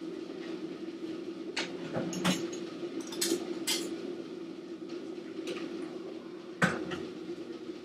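Kitchenware clinking and clattering as it is handled: a few sharp knocks about two to four seconds in and one louder knock near the end. Under them runs a steady low hum.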